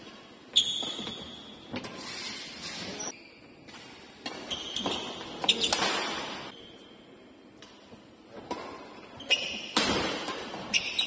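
Badminton doubles rally on an indoor court: sharp smacks of rackets hitting the shuttlecock every second or few, with shoes squeaking briefly on the court floor.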